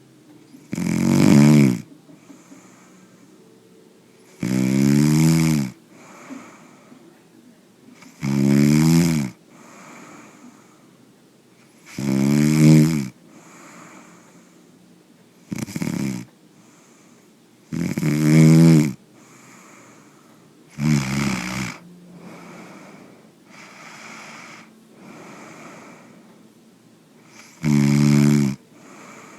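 A man snoring: eight loud snores, each about a second long, coming roughly every three and a half to four seconds, with softer breaths between them and a longer pause before the last one.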